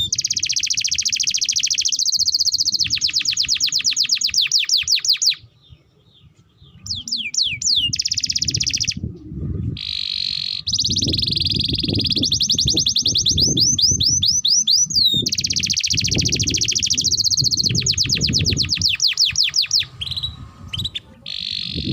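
Domestic canary singing long, fast trills of rapidly repeated notes, with a brief pause about six seconds in before the song resumes.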